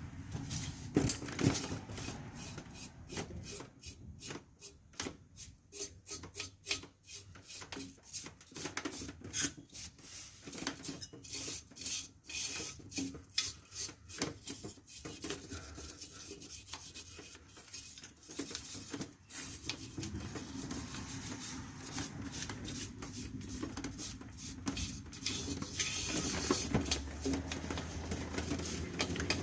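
Quick repeated scraping strokes by hand on a rear drum-brake part, giving way to a steadier scrubbing about two-thirds of the way through.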